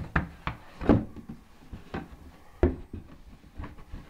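Cardboard puzzle box and its card insert being handled, giving a string of short knocks and scuffs, the loudest about a second in.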